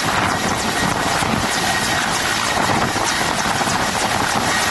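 Indian Air Force Mi-17 helicopter hovering low overhead: a loud, steady rush of rotor and engine noise.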